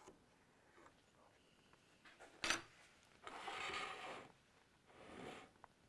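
Faint workbench handling: a single sharp clink about two and a half seconds in, then about a second of scraping, as a metal straight edge and welder's pencil are moved about on a guitar fretboard. A weaker rub follows near the end.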